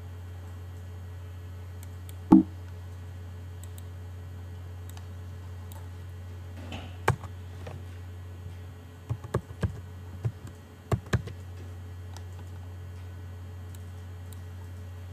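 Computer keyboard keys being typed: a quick run of about six keystrokes, as a short word is entered, about nine to eleven seconds in. Before that come a single sharp knock about two seconds in and a few clicks near the middle, all over a steady low hum.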